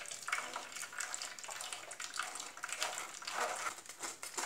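Metal spoon stirring and scraping blended tomato and carrot soup around a stainless-steel mesh strainer, the liquid sloshing and running through into a steel bowl below.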